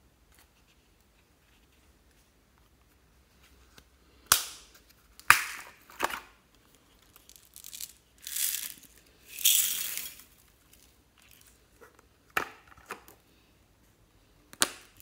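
Hard plastic clicks and snaps as a plastic bead-and-sequin compartment box and a plastic clay mould are handled, with two hissing, rattling spells of about a second each in the middle as small beads and sequins are poured into a bowl.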